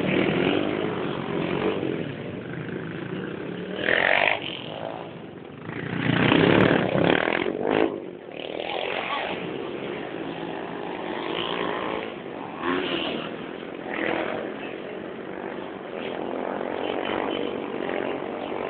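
Motorcycle engines running and passing on the street, loudest as one goes by about six seconds in.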